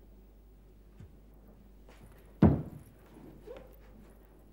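An Odissi dancer's bare feet stamping on a wooden stage floor as she turns and lands: one loud stamp about two and a half seconds in and another at the very end, with lighter taps about a second in and near three and a half seconds.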